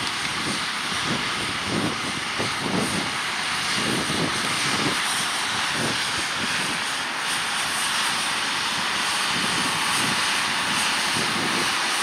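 John Deere 6215R tractor engine running steadily under load as it pulls a six-furrow reversible plough and comes closer, with a second 6215R working a power harrow drill further off.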